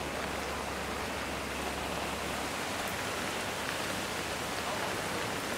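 Heavy rain falling steadily on a street, an even hiss. A low hum underneath stops about two and a half seconds in.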